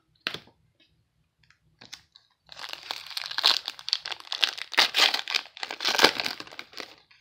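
A single click, then from about two and a half seconds in a foil trading-card pack wrapper crinkling and tearing as it is handled and ripped open.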